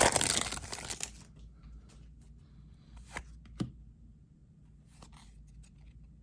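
A foil trading-card pack being torn open and crinkled, dense and loud for about the first second, then going quiet apart from two light clicks about three seconds in and faint rustling.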